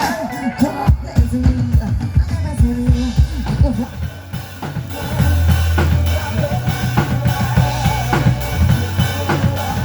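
Live band sound check: a drum kit plays a beat with prominent kick drum and snare. A steady low bass tone joins about five seconds in.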